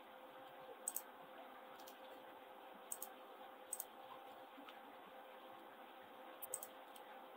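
Computer mouse and keyboard clicks, faint and sharp, a handful of them with some in quick pairs, over a faint steady hum of room tone.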